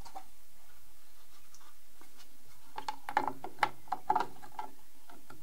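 Wheel spat being handled and fitted over a model aircraft's landing-gear wheel: after a quiet start, a cluster of light clicks, taps and scrapes lasting about two seconds, beginning around three seconds in.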